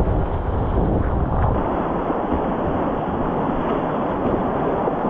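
Rushing whitewater of a river in spate, a steady churning roar, with wind buffeting the microphone as a heavier low rumble for the first second and a half.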